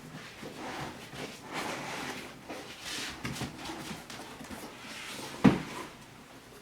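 Packing foam and cardboard box being handled, with rustling and scraping, and one dull thump about five and a half seconds in.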